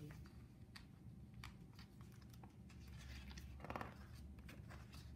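Near silence: quiet room tone with a few faint clicks and soft rustles from handling the pages of a picture book.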